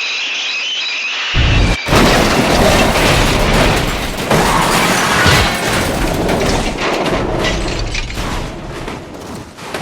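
Cartoon crash sound effects: a high steady tone, then a sudden loud crash about a second and a half in, followed by a long booming, clattering crash that slowly fades near the end.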